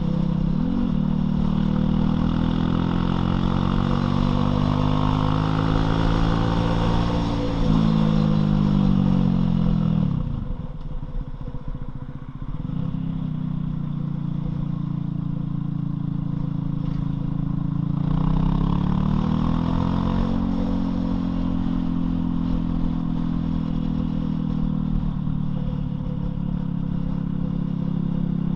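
Loncin LX250-12C motorcycle engine under way, revs rising through the first several seconds. The engine drops back and goes quieter about ten seconds in, picks up again a few seconds later, and then runs at a steady speed.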